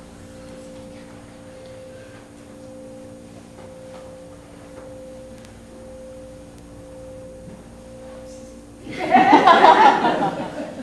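A steady hum of several held low tones. About nine seconds in, a sudden loud vocal outburst cuts in for a second or two, then fades.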